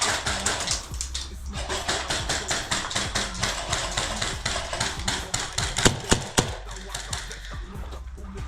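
Background music with a fast, even beat, with two sharp cracks about six seconds in.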